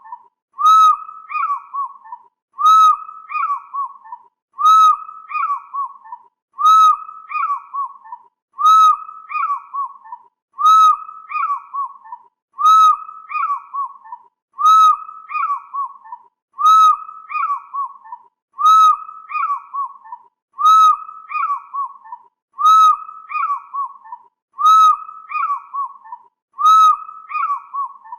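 Fish eagle calling: a loud ringing, arched yelp followed by three or four shorter falling notes, the same call repeated about every two seconds.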